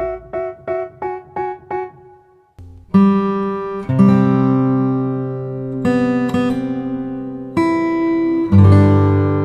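Background music with no vocals: a run of short plucked guitar notes that fades out, a brief pause, then sustained guitar chords changing every second or two.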